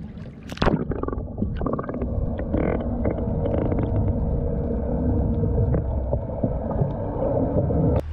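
A splash about half a second in as the camera plunges under the sea surface, then muffled underwater sound: a steady low rumble with gurgling, all the high end cut off.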